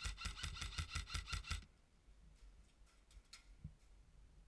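Airsoft rifle firing a rapid burst of about a dozen shots lasting about a second and a half, followed a little later by a couple of faint single clicks.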